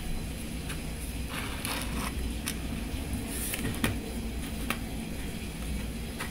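A paintbrush dabbing and stroking gloss glaze onto a thin wooden earring: soft scratchy strokes and scattered small clicks over a low steady hum.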